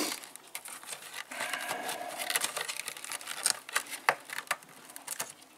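Hands handling a chainsaw's plastic housing and a twisted synthetic cord: light rustling with scattered small clicks and scrapes.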